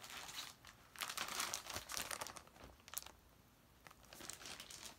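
Packaging crinkling as cross-stitch patterns are handled, for about three seconds, with a sharp click about three seconds in and a fainter rustle near the end.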